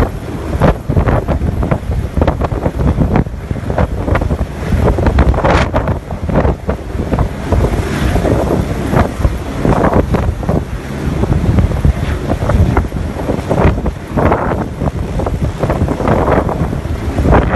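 Eurocopter AS350 B3 single-turbine helicopter running close by, nearly buried under loud, irregular wind buffeting on the microphone.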